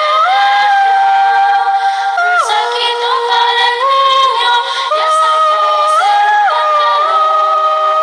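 Girls' choir singing a Christmas carol (villancico) a cappella in harmony, with long held notes that step up and down together in several parts.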